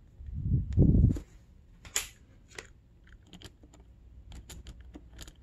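Low rubbing and pressing noise of a carburetor being worked into its rubber boot, about a second long just after the start. Then scattered light metallic clicks and ticks as a screwdriver is set against the boot's hose clamp.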